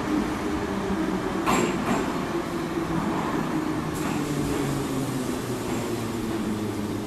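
Soviet-type metro train pulling into an underground station and slowing, its motor tone gradually falling in pitch under a steady rumble. There is a sharp clack about one and a half seconds in and another at about four seconds.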